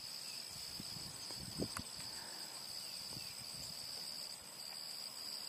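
Steady high-pitched insect chirring, two even tones held throughout, with faint low thuds and a small knock about a second and a half in.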